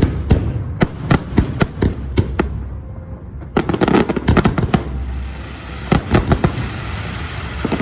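Aerial fireworks bursting: rapid rattling volleys of sharp bangs in three clusters, about a second apart, over a steady low rumble.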